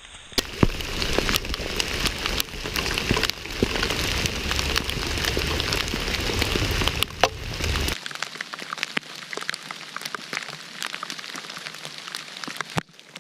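Rain falling, with many sharp drop hits close to the microphone. About eight seconds in, the deep part of the sound drops away abruptly and the rain goes on thinner.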